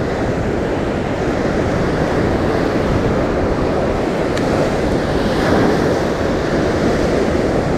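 Ocean surf washing up a sandy beach, a steady rush of water, with wind buffeting the microphone.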